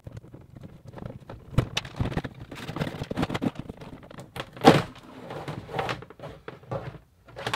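Rustling, scraping and light knocks of a thin two-strand wire being pulled down through a wall and handled, irregular throughout, with one louder knock a little under five seconds in.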